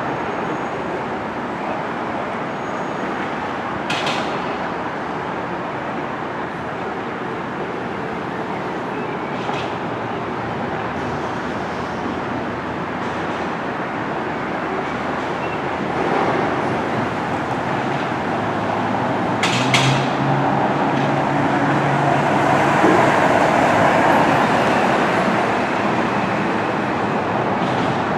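Steady outdoor rumble of traffic and engines, growing louder in the second half, with a low engine hum in the middle. A few sharp clicks stand out, one of them doubled.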